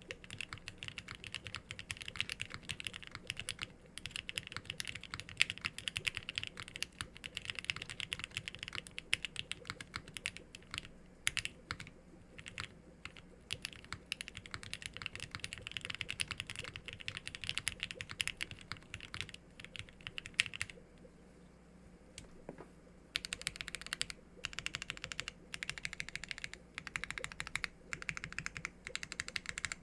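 Continuous typing on a TGR Jane v2 ME custom mechanical keyboard with filmed, 205g0-lubed H1 switches, a polycarbonate plate, O-ring mounting and GMK keycaps: a dense run of key clacks. The typing almost stops for about two seconds two-thirds of the way through, then resumes.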